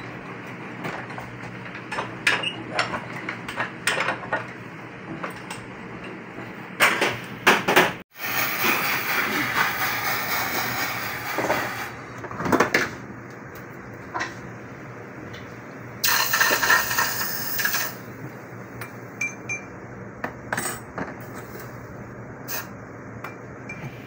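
Small hard clinks and taps of metal and glass tools being handled on a goldsmith's bench, with two stretches of steady hiss in the middle.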